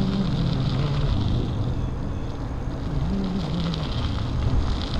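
Riding noise of an e-bike on the move: a steady low rumble with a low hum that wavers up and down in pitch.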